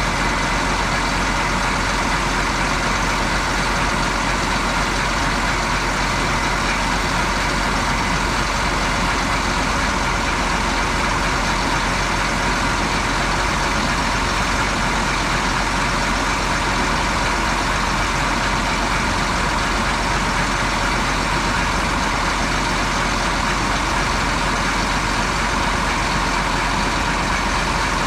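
A heavy vehicle's engine running steadily: an even, unbroken drone.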